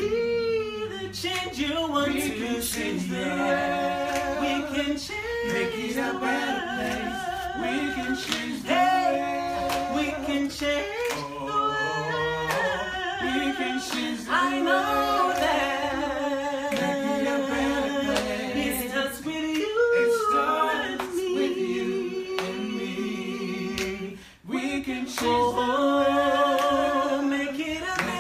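A small vocal group singing a song together in harmony, a cappella, several voices holding and moving between sustained notes. The singing breaks off briefly about three quarters of the way through, then resumes.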